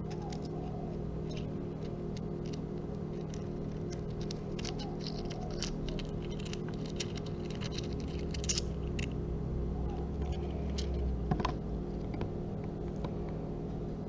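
Small crystals clicking and tapping lightly against each other as they are handled: a scatter of faint sharp clicks, thickest in the middle, with one firmer knock about eleven seconds in, over a steady low hum.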